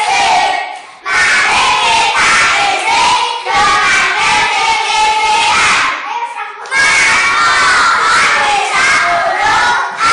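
A group of young children chanting loudly together in a game chant, half singing and half shouting, breaking off briefly about a second in and again around six seconds before starting up again.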